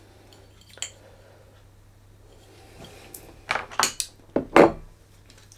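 A glass beer bottle handled on a table: a faint click about a second in, then a quick cluster of knocks and clinks near the end, the last one the loudest.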